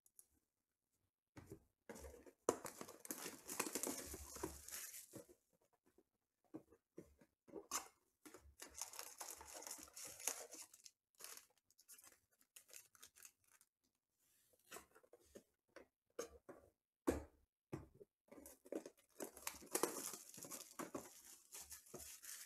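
Foil trading-card packs (Panini Elite Extra Edition Baseball) being handled and torn open by hand, crinkling and rustling, with cardboard hobby boxes moved about on the table. The rustling comes in short bursts with brief pauses between them.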